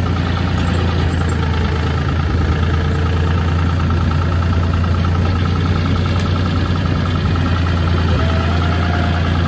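John Deere loader tractor's diesel engine running steadily as the front loader scoops and lifts a bucket of chicken litter, with a steady whine over the low engine hum.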